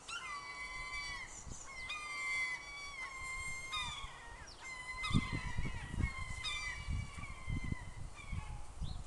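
A bird calling over and over: a run of drawn-out calls of steady pitch, each dipping at its start and lasting about half a second to a second. Low muffled thumps join in during the second half.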